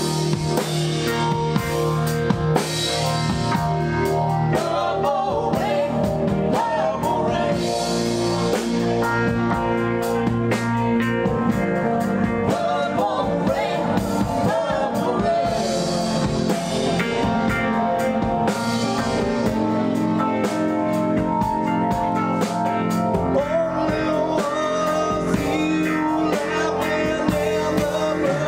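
Live rock band playing: electric guitar, keyboard, synth bass and drums, with a voice singing over sustained chords.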